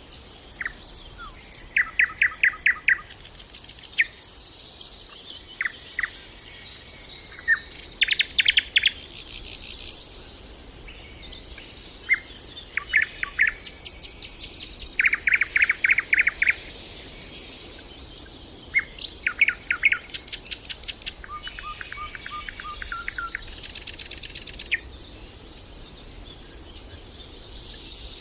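Nightingale singing: short phrases of fast repeated notes and rattling trills, each a second or two long, separated by brief pauses.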